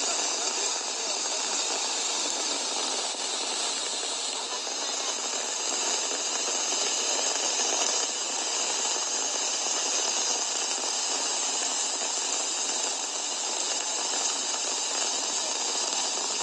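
Floodwater rushing past a half-submerged lorry: a steady, hissy rush with no low rumble.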